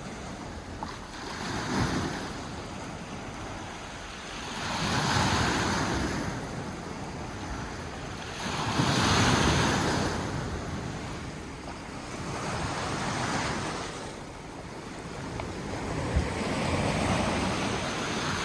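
Sea waves breaking and washing against rocks, the rushing swelling and fading every three to four seconds, with one brief knock near the end.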